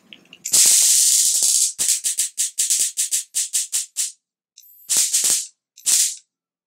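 High-voltage sparks crackling across the foil blade strips of a homemade electric sword, driven by a battery-powered high-voltage boost transformer putting out around 40,000 volts. A continuous crackling burst lasts about a second, followed by a quick run of separate snaps and then two short bursts near the end; the arcing shows the sword works.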